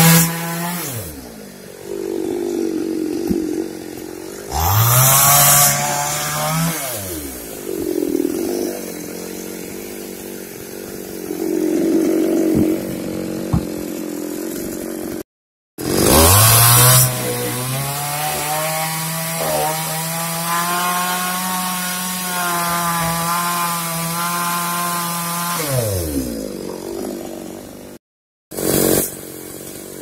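Petrol chainsaw revving up to full speed to cut through a log, then falling back to idle, three times over; the last cut holds at full speed for about ten seconds.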